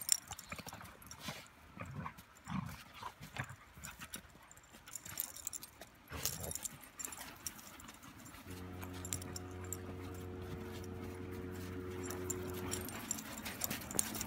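Two puppies, a Golden Retriever and a Groenendael, play-fighting in snow: scuffling and paws crunching in the snow, with a few short low growls. Past the middle, a steady low hum joins in for a few seconds and then stops.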